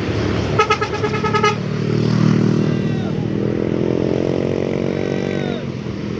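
A short burst of a rapidly pulsing horn about half a second in, then a road vehicle's engine speeding up as it passes, its pitch rising over a few seconds.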